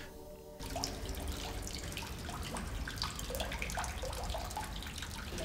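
Water trickling and dripping, with many small, quick plinks over a low steady rumble.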